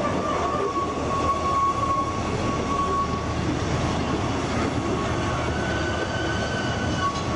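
Narrow-gauge Ffestiniog Railway passenger carriages rolling in along a curved platform, a steady rumble of wheels on rails. Thin high-pitched squeals come and go over it, from the wheels on the curve.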